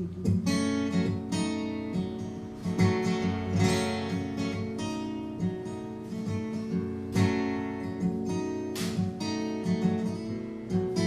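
Acoustic guitar strumming chords in an instrumental break between sung verses of a folk-style song.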